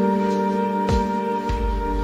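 Soft background music with held chords; the chord changes about halfway through.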